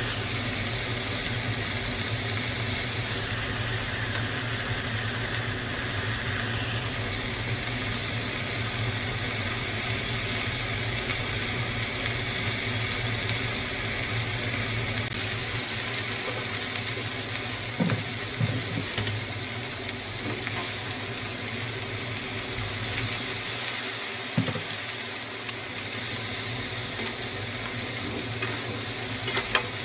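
Buffalo meat and water spinach sizzling as they are stir-fried in a pan, a steady hiss over a constant low hum. A few sharp knocks of chopsticks against the pan come about two-thirds of the way in and again near the end.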